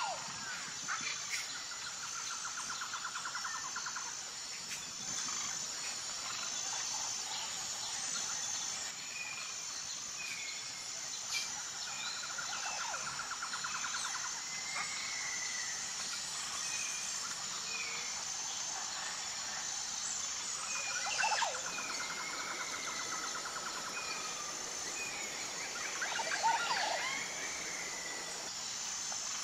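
Woodland birdsong: several birds give short repeated chirps and trilled phrases, over a steady, evenly pulsing chirr of insects.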